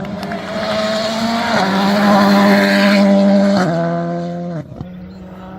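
Turbocharged four-cylinder rally car passing at full throttle on a gravel stage, its engine note climbing and shifting up about a second and a half in and again near four seconds, with tyre and gravel hiss loudest as it goes by. It lifts off and drops away sharply near the end.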